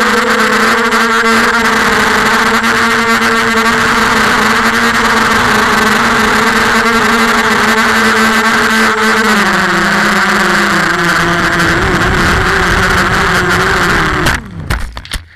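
Emax 250 Pro quadcopter's brushless motors and propellers whining steadily as heard from its onboard camera, the pitch stepping down about nine and a half seconds in. Near the end the whine breaks into a few crackling knocks and dies away as the quadcopter comes down in the grass.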